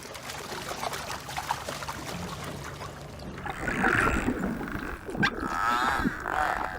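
Water splashing as bottlenose dolphins drive fish against the bank and a pelican scoops among them. A louder rush of splashing comes about four seconds in, then one sharp splash a second later.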